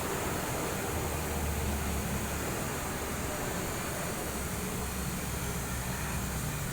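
Steady low rumble under an even hiss of background noise, with no horn sounding.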